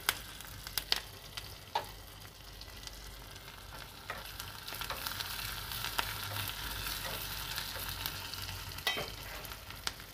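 Chopped onion, dried red chillies and curry leaves sizzling in hot oil in a small iron tempering ladle while a spoon stirs them, the tempering (thalippu) for sambar. A few sharp clicks in the first two seconds, then a steady sizzle that grows louder from about four seconds in.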